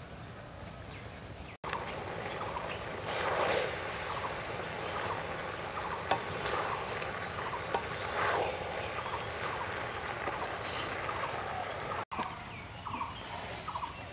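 Gram seeds (black chickpeas) being stirred and fried in a large iron wok: a steady sizzle with the spatula scraping the pan and the seeds rattling in louder sweeps every two to three seconds.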